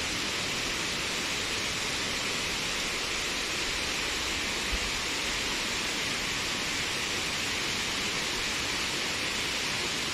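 Steady rushing of falling water from a forest waterfall, an even hiss with no let-up. There is one brief low bump about halfway through.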